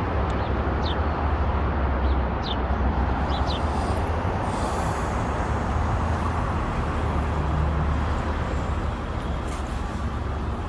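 Steady low rumble of road traffic and idling vehicles, with a few faint, short, high chirps in the first few seconds.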